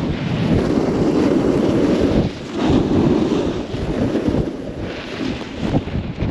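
Wind rushing over the microphone of an action camera carried down a ski run at speed, mixed with snowboard edges sliding and scraping on the snow. The rushing surges unevenly and dips briefly a little over two seconds in.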